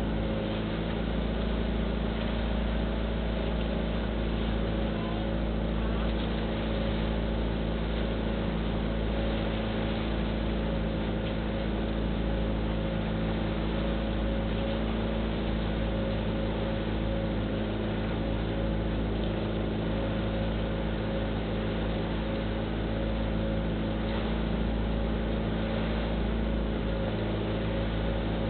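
Motorized outrigger boat (bangka) engine running steadily under way, a constant drone at unchanging pitch, over a continuous hiss of wind and water.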